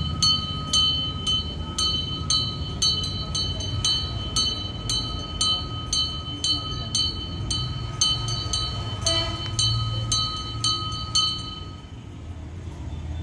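Small brass puja hand bell rung steadily by hand, about three clear strokes a second, each leaving a high ringing tone. The ringing stops about eleven seconds in, over a low background rumble.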